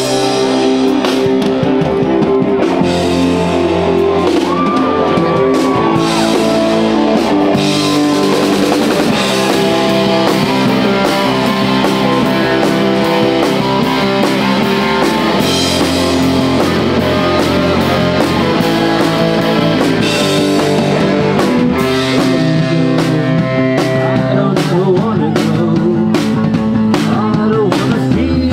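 Live rock band playing: drum kit, electric and acoustic guitars and keyboard.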